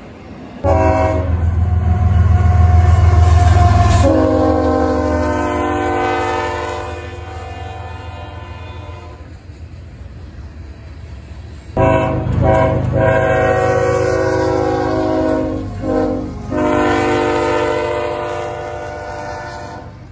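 Diesel locomotive's multi-chime air horn sounding long blasts over the rumble of the passing train, its tone shifting abruptly partway through as it goes by. A second long horn sequence begins about twelve seconds in, with a short break near its end.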